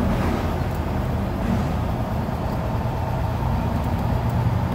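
Truck engine idling: a steady, even low drone.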